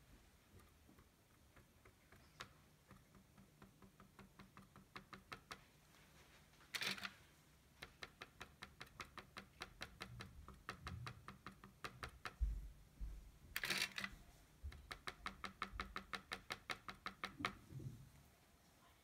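A cotton swab dabbing paint dots onto a canvas in quick runs of light taps, about four or five a second. Twice there is a brief, louder scrape in between.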